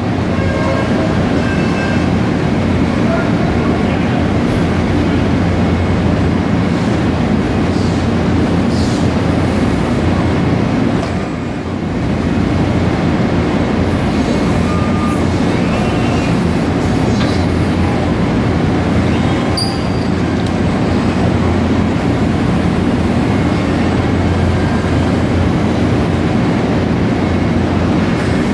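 Steady, loud industrial din from factory machinery at a robot cell: a dense low rumble with hiss above it, dipping briefly about eleven seconds in.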